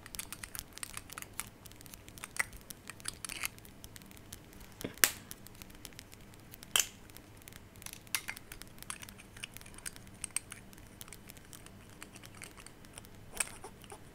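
A cap and a rubbery piece of stationery handled and tapped close to the microphone. It gives scattered soft taps, clicks and light crinkling, with a few sharper clicks.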